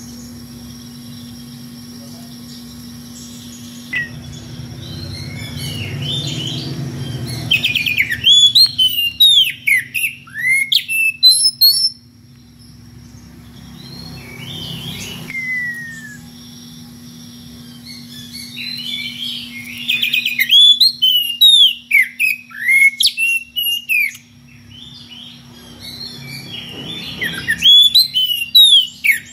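Oriental magpie-robin singing loudly in three bouts of fast, varied whistled phrases with quick rising and falling sweeps. A low rumble fills the gaps between the bouts.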